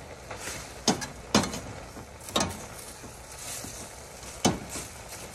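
Metal spoon stirring shredded cabbage in a stainless steel pot, with several sharp clanks as it knocks against the pot. Under it a steady hiss as the cabbage steams.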